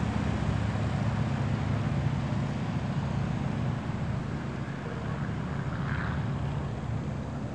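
Stearman biplane's radial engine running at full takeoff power as the plane lifts off and climbs away, a steady drone that grows a little fainter after about four seconds.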